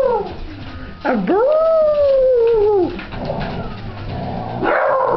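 Hound puppy howling: one long howl about a second in that rises quickly, then slides slowly down in pitch over nearly two seconds, with shorter yowls at the start and near the end.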